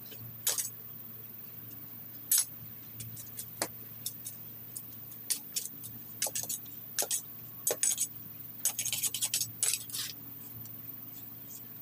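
Machete blade scraping and chopping at weeds in soil and mulch along the paver edging: short scrapes and clicks at irregular intervals, with a quick run of them near the end, over a low steady hum.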